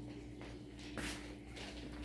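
Faint footsteps and shuffling on a wooden floor, a few soft clicks, over a low steady hum.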